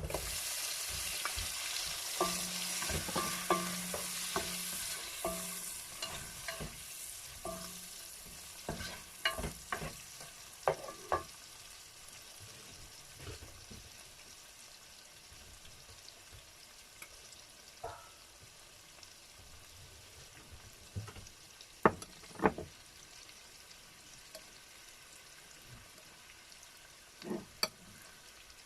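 Tomatoes going into a hot pan of browned onion and garlic: a sizzle that starts suddenly, loud at first and dying down over about ten seconds, with a utensil stirring and knocking against the pan now and then.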